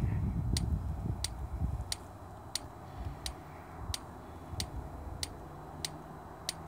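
Steady, evenly spaced sharp ticking, about three clicks every two seconds, with a low rumble under it for the first two seconds.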